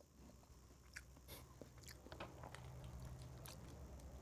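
Faint chewing and mouth sounds of someone eating, with scattered soft clicks.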